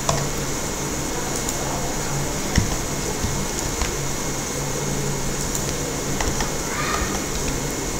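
Steady background noise, a hiss with a low hum, and a few faint clicks spread through it.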